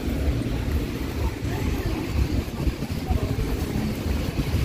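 Rainy city street ambience: an uneven low rumble of traffic with a hiss of wet road noise underneath, and faint voices.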